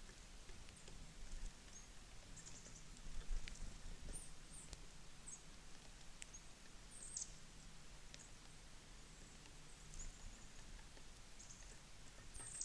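Small songbirds giving short, high chip calls now and then, with a few faint sharp clicks in between.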